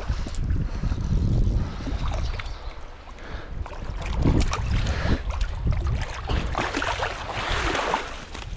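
Wind buffeting the camera microphone with a low rumble, and shallow stream water splashing as a hooked trout thrashes at the surface and is scooped into a landing net. The splashing is loudest in the second half.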